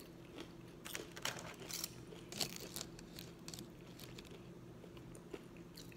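Faint eating sounds: soft chewing of French fries and a few short crackles as fries are picked from a foam takeout box, bunched in the first half, over a low steady room hum.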